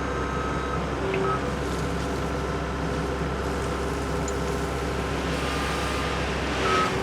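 Case TR320 compact track loader's diesel engine running steadily under load, with a whine that comes and goes as the hydraulics work the bucket to dump a load of asphalt millings.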